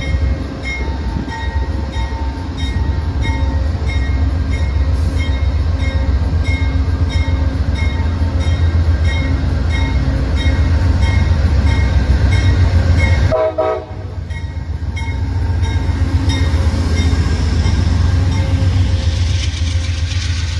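CTrail diesel locomotive rolling along the platform with its engine rumbling heavily and its bell ringing steadily about twice a second. About two-thirds of the way through, the bell stops and the coaches rumble past close by with a brief clatter.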